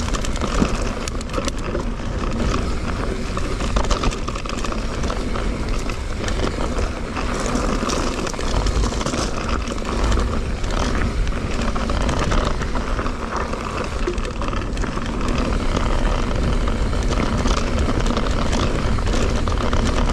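Mountain bike descending a dirt trail at speed: wind buffeting the microphone, with tyre noise and the rattle and clatter of the bike over the rough ground.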